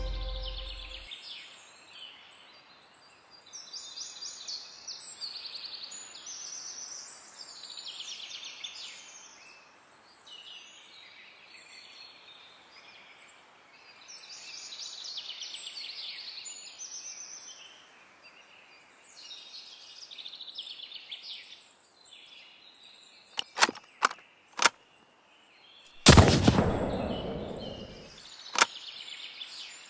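Birds singing in woodland as background music fades out. Near the end there are a few sharp clicks, then a single loud rifle shot with a tail lasting about two seconds, the shot that shatters a small hand mirror.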